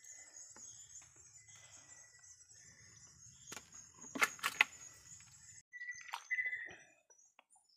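Two sharp knocks a little over four seconds in, from a hand working the opening of a plastic catch container as a shrimp is dropped inside, over a faint steady high-pitched hiss that cuts off abruptly soon after.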